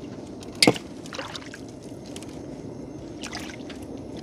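Water splashing and trickling as a gill net is hauled over the side of a small boat, over a steady low wash. There is one sharp hit about half a second in and softer splashes near one second and three seconds.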